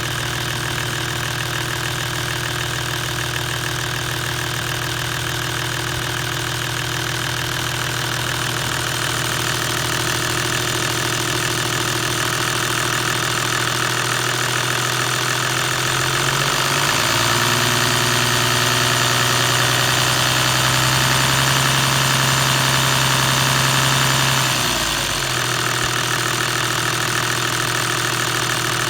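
Toyota 1HD-FT straight-six turbo diesel idling with a rattle that the owner suspects comes from the timing gears or the injection pump. About halfway through, the revs rise a little and are held for several seconds, then drop back to idle.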